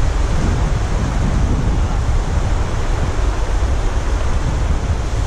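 Ocean surf breaking and washing over a rocky reef shelf, a steady rushing wash, with wind rumbling on the microphone.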